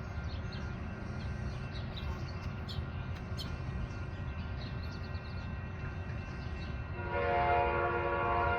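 Low rumble, then about seven seconds in an Amtrak locomotive's horn starts blowing a steady chord of several tones.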